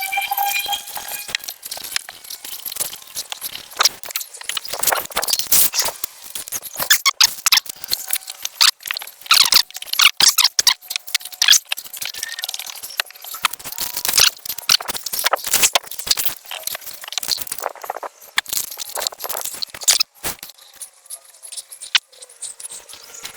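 A chemical wipe being scrubbed over a plastic headlight lens, making irregular rubbing strokes and short squeaks, with a brief rising squeak at the very start.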